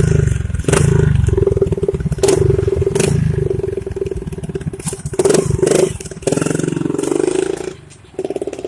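Hero Glamour motorcycle's single-cylinder engine running and being revved several times, dropping back briefly near the end before picking up again.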